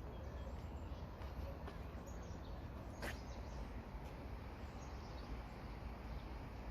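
Steady low ambient background noise of a public space, with a few faint high chirps and a single sharp click about three seconds in.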